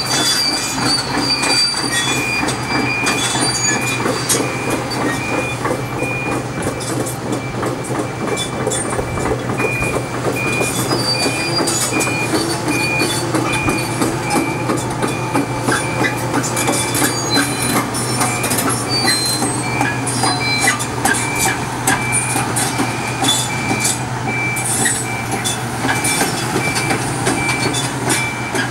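Kobelco SK350 crawler excavator travelling at top speed: a steady diesel engine drone with the clatter of its steel tracks, and a high-pitched alarm beeping about once a second.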